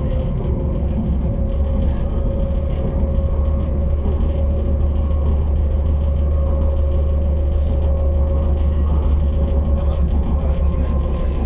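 AnsaldoBreda driverless metro train running at steady speed through a tunnel, heard from inside: a deep, steady rumble of wheels on rail with a steady whine over it.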